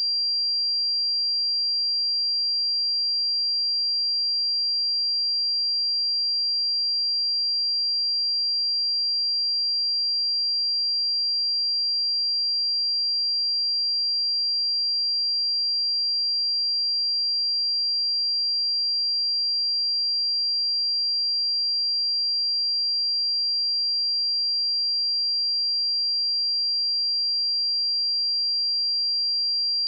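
A pure 4745 Hz sine-wave test tone, a single steady high-pitched whistle-like tone held at a constant level.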